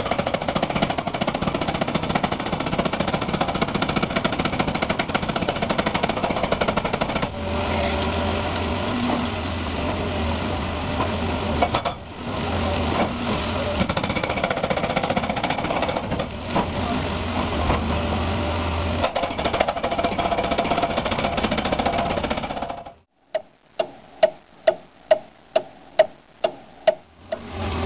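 Pneumatic jackhammer hammering continuously, with a steady low machine hum beneath it through the middle stretch. Near the end it stops abruptly, and about ten separate sharp strikes follow at a little over two a second.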